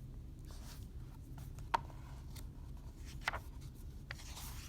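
Faint paper rustling and handling of a picture book, with a few light clicks, over a low steady hum.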